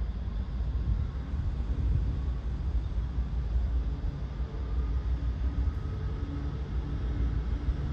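Diesel freight locomotives approaching slowly, their engines running with a steady low rumble and a faint hum.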